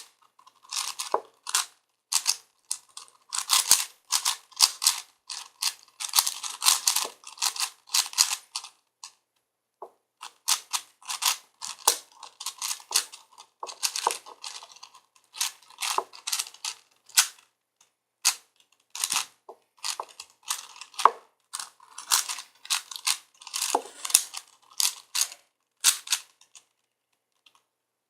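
A 4x4x4 Rubik's cube being turned by hand in quick runs of plastic clacks, as layers are twisted during a solve, with short pauses about nine seconds in and near the end.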